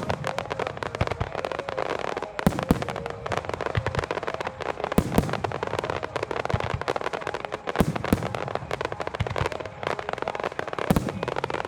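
Starmine fireworks bursting in rapid succession: dense crackling and popping throughout, with a loud sharp boom about every two and a half to three seconds.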